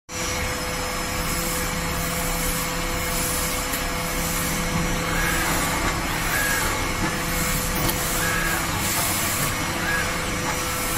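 Beauty-blender sponge making machine running: a steady mechanical din with a constant hum, brief hissing bursts every second or two and short repeated chirps from its moving heads.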